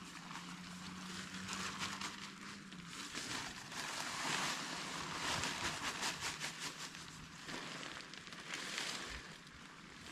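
Crinkly rustling of hot-tent fabric as it is pulled from its stuff sack and shaken out, rising and falling in surges.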